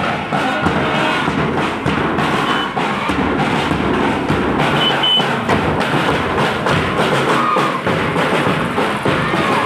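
School marching band playing on the march: bass drums and snare drums beating continuously.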